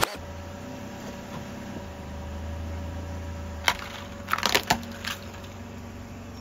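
Small plastic toy cars cracking and snapping under a car tyre: one sharp crack about three and a half seconds in, then a quick cluster of cracks and one more snap, over the car's low, steady engine hum.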